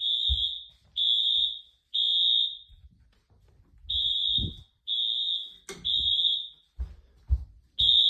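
Wheelock AS-24MCW fire alarm horn sounding in temporal code-3 on its low volume setting: three short high-pitched blasts, a pause, three more, and a third group starting near the end. A sharp click sounds about six seconds in.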